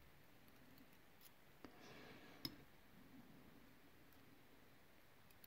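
Faint, quiet clicks of steel tweezers and small lock parts inside an ASSA Twin lock cylinder as springs and pins are loaded. There is a brief soft scrape about two seconds in, then one sharper metal click.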